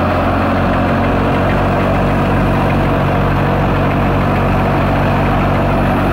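Tractor-driven wheat thresher running steadily under load, a continuous mechanical drone with a low hum, threshing wheat and chopping the straw into chaff (bhusa).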